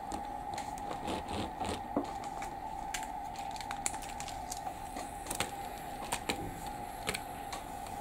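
Light, irregular clicks and taps of a wooden toy train car being handled and set onto plastic track, with a second car coupled on behind it. A faint steady hum runs underneath.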